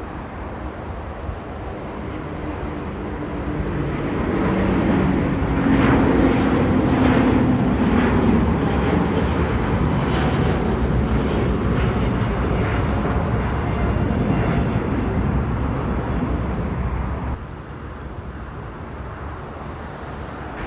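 Jet airliner passing close by: its noise builds over the first few seconds, stays loud with a whine that falls in pitch, then drops off abruptly near the end.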